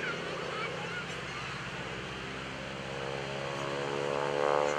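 North American SNJ-5 Texan's Pratt & Whitney R-1340 radial engine and propeller droning overhead during an aerobatic pass, the pitch sliding as it swells to its loudest near the end.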